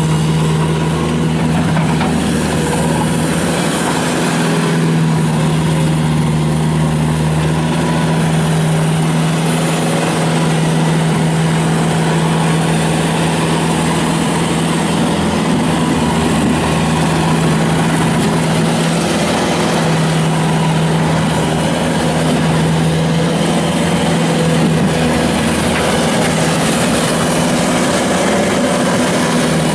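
Kubota turbo diesel engine of a 2007 Bobcat T300 rubber-track skid steer loader running at a steady speed.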